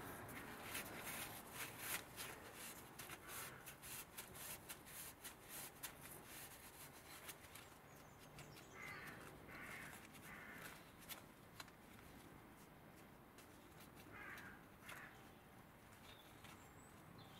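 Faint clicking and scraping as melted rubber is picked out of the grooves of a ribbed belt pulley by hand, with a few short harsh rasps about nine to ten seconds in and once more near fourteen seconds.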